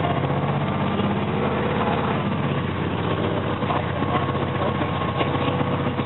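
Diesel engine of a Blue Bird TransShuttle bus (Cummins ISB) heard from inside the cabin, running steadily as the bus drives through city traffic.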